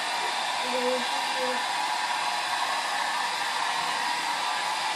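Handheld hair dryer running steadily on hair, a constant even blowing hiss.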